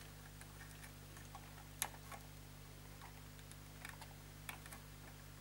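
Thin flat-blade screwdriver prying at the plastic retaining clips of a push-button mains power switch: faint scattered ticks and scrapes, with one sharper click about two seconds in.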